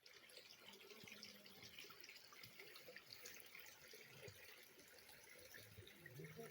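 Faint trickling water with scattered drips.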